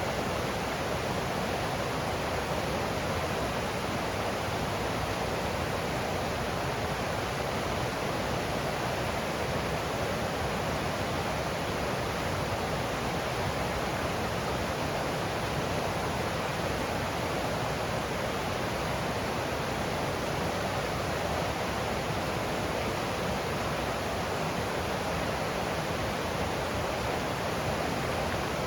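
Stream water rushing and splashing over rocks: a steady, even rush with no breaks.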